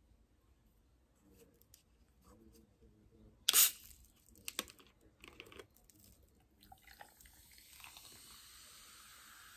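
Plastic drink bottle's screw cap twisted open, with one loud sharp crack about three and a half seconds in and a few softer clicks after it. From about eight seconds on, the drink is poured over ice cubes in a glass, a steady splashing hiss.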